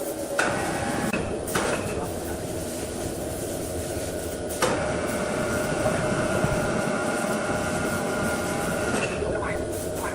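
Woodworking machine running steadily with a constant tone, broken by a few sharp knocks in the first five seconds.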